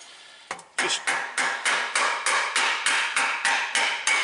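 A mallet tapping repeatedly on the sump of an upside-down Briggs & Stratton engine to break the gasket seal loose so the sump pops off: one knock, then a quick, even run of about a dozen knocks, three to four a second.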